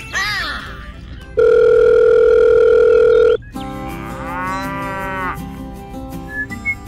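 A loud, steady electronic tone held for about two seconds, then a cow mooing once, over light music.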